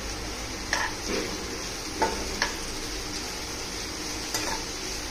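Sliced onions sizzling as they fry in mustard oil in a nonstick kadai, stirred with a metal spoon that knocks and scrapes against the pan a few times.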